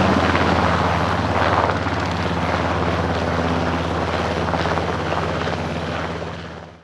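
NH90 helicopter flying low just after lift-off: steady rotor beat with a rushing turbine sound. The sound slowly grows quieter and fades out at the very end.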